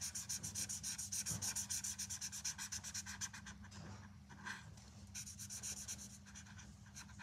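Green felt-tip marker scribbling back and forth on paper while colouring in, a quick stroke about six times a second. The strokes pause briefly a little past halfway, then start again.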